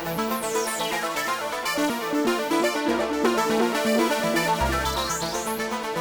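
Sequenced electronic music from a Moon Modular analog modular synthesizer: a fast repeating note pattern over held bass notes, with a swept noise-like glide falling in pitch about a second in and more sweeps near the end.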